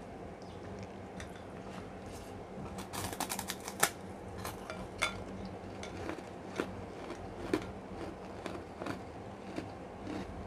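Eating rice by hand from a plate: scattered sharp clicks and light scrapes of fingers and nails against the plate, with a quick run of clicks about three seconds in and the loudest click just before four seconds.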